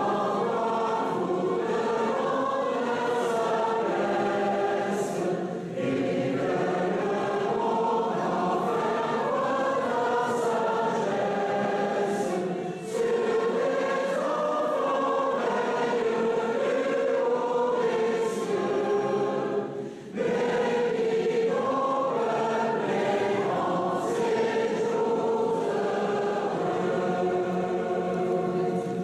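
A large choir singing in a stone-vaulted church, its phrases broken by short breaths about 6, 13 and 20 seconds in; the singing stops right at the end.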